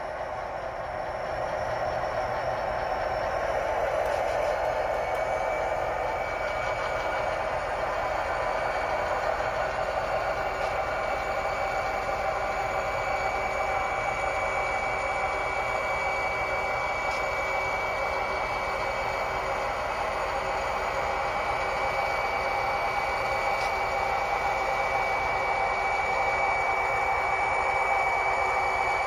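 Sound-equipped model diesel locomotive running steadily as it approaches, its engine sound from the onboard speaker. A high steady whine joins about six seconds in.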